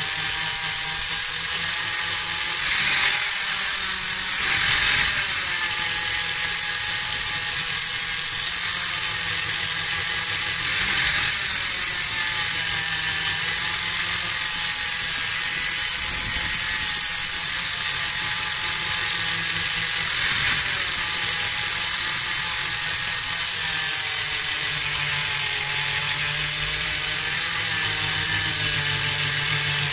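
Electric angle grinder running with a 120-grit flap sanding disc pressed against a steel axe head: a loud, steady motor whine over a grinding hiss, its pitch wavering slightly as the pressure on the disc changes.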